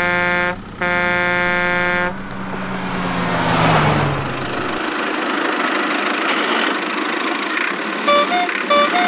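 Two horn honks, a short one then a longer one, with a low hum that then falls away under a steady rushing noise. Two brief bursts of electronic beeps come near the end.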